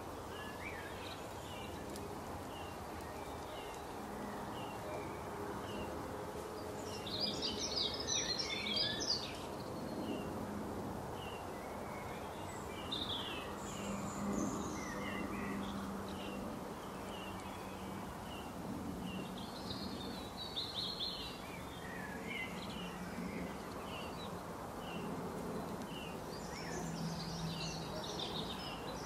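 Wild birds chirping: a short chirp repeats throughout, with louder bursts of twittering about seven seconds in, around twenty seconds in and near the end, over a steady background hiss.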